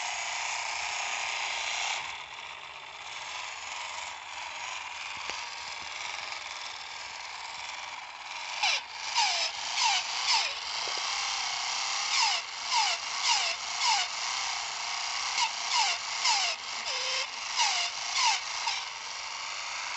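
Small battery toy motor and gearbox in a bootleg transparent Spotbot walking robot, whirring steadily as it walks. From about eight seconds in, short squeaky clicks repeat roughly twice a second in bursts. The toy runs a little slow on fresh batteries; its motor had been stuck and freed.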